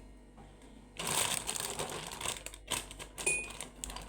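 Crinkling and rustling as things are handled over a mug, in several bursts starting about a second in. There is a brief light ring, like a spoon touching the mug, a little past three seconds.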